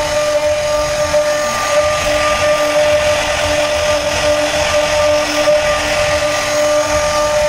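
Electric power tool running at a steady speed: a high-pitched motor whine over a steady hiss, without a break.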